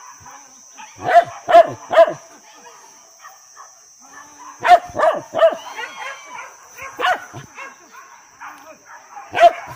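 Hunting dogs barking loudly: a run of three barks about a second in, another three about halfway through, then single barks near the end.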